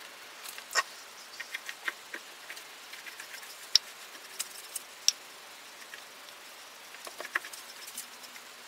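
Scattered, irregular sharp ticks and light patter of loose foundry molding sand as a brush sweeps it off the face of a sand mold around the pattern, over a faint steady hiss.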